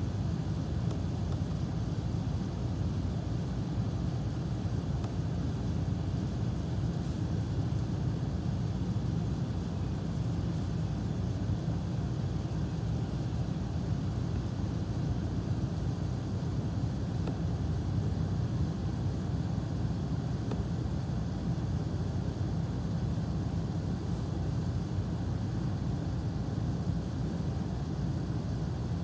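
Steady low background rumble, even throughout, with no distinct events.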